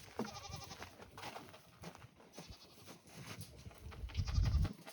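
Nigerian dwarf goats bleating: a short call with a falling pitch at the start and another, louder one about four seconds in, the second with a low rumble or bump under it.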